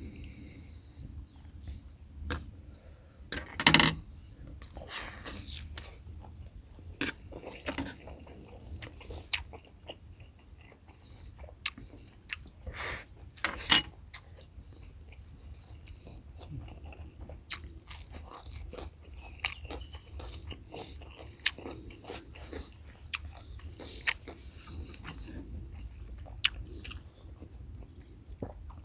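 Scattered clinks and knocks of cooking utensils and ingredients being handled, the loudest about 4 and 14 seconds in, with crickets trilling steadily and high-pitched in the background.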